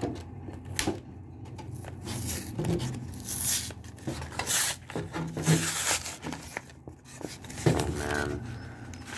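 Cardboard and paper packaging of a Pokémon card box being torn and peeled open by hand: several separate rips and rustles, the loudest in the middle.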